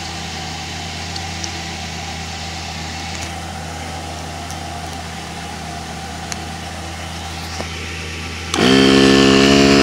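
A steady low mechanical hum, then about eight and a half seconds in an electric air compressor starts up suddenly and much louder, its pitch rising briefly as the motor comes up to speed, running on to inflate a plugged tire.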